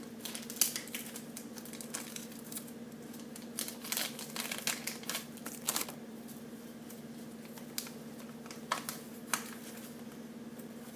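Paper insert being handled: scattered short rustles and crinkles of a folded paper leaflet, over a steady low hum.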